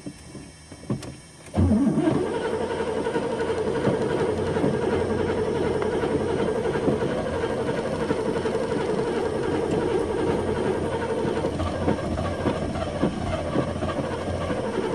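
An old car's engine being cranked by the starter motor, which begins about a second and a half in after a couple of clicks and grinds on steadily without the engine catching: the car won't start.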